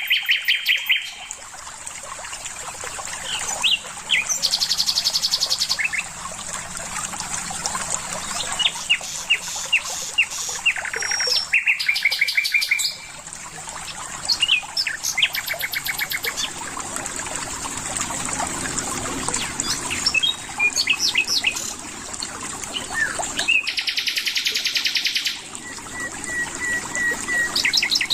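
Songbirds singing and chirping in a series of rapid trills and short repeated phrases, over a steady high hiss.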